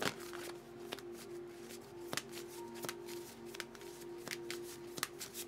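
Tarot cards being handled and shuffled: an irregular scatter of light card clicks and flicks. Soft background music holds steady sustained notes underneath.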